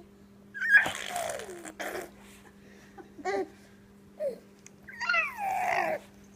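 Baby's voice making funny noises: a string of raspy squeals and short squawks that fall in pitch. The loudest comes about a second in and the longest near the end.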